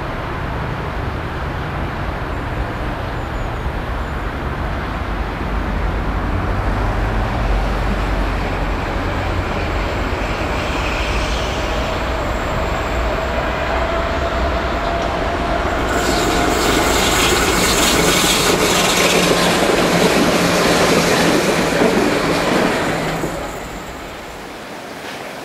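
Hamburg Hochbahn DT 2 U-Bahn train pulling away and running over curved track: a steady rumble of wheels and running gear with a faint rising whine in the middle. Over the last several seconds a loud, high hiss and screech of wheels on the curve, then the sound drops away suddenly to a quieter steady hiss.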